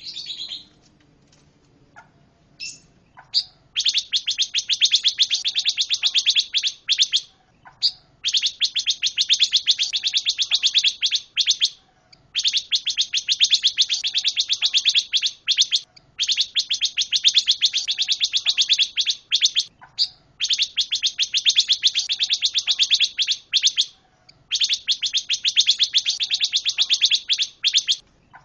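Pancawarna songbird singing in long runs of very rapid, chattering trills, each lasting three to four seconds with short pauses between, after a few scattered short calls at the start.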